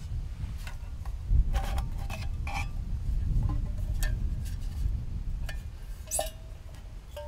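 Metal-on-metal clinks and taps as a cylindrical metal char tin with a wire latch and a steel canteen cup are handled and knocked together. The clinks come irregularly and ring briefly, the brightest about six seconds in, over a steady low rumble.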